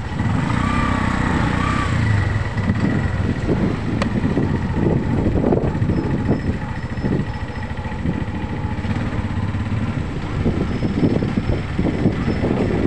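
A motor scooter being ridden in traffic. Its engine runs steadily under a gusty rush of wind buffeting the microphone, and the motorized tricycles close ahead add their engine noise.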